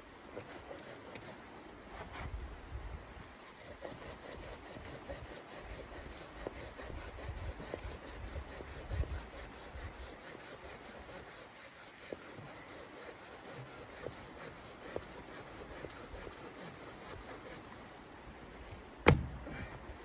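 Folding hand saw cutting through a dead wooden branch, with steady rasping back-and-forth strokes. A single sharp knock near the end is the loudest sound.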